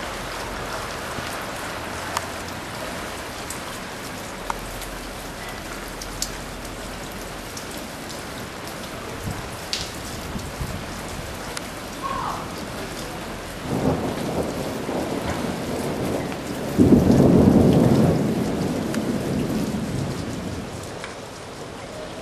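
Steady rain of a thunderstorm falling, with scattered sharp drips. A peal of thunder rumbles in about two-thirds of the way through, hits its loudest a few seconds later, and rolls away near the end.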